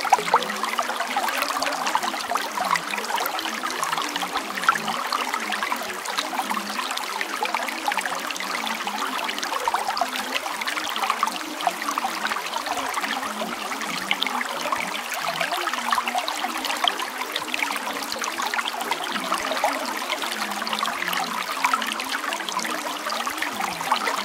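Steady trickling, running water, like a small stream, with no breaks or changes. It is the masking bed of a subliminal affirmations track; the affirmations meant to lie beneath it are not heard as words.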